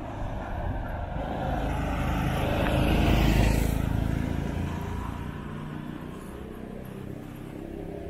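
A car driving past, growing louder to a peak about three seconds in, then fading away.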